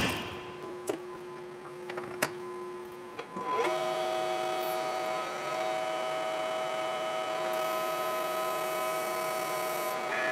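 A vertical lathe spinning a Nylatron tube while boring it: a steady machine hum of several steady tones that comes in about a third of the way in, with a thin high whine for a couple of seconds near the end. Before it, a quieter shop with a faint steady tone and two light clicks.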